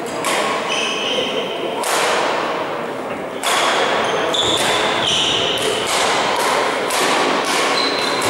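Repeated sharp knocks ringing through a large sports hall, coming about twice a second after the first few seconds, mixed with short high squeaks of sports shoes on the hall floor.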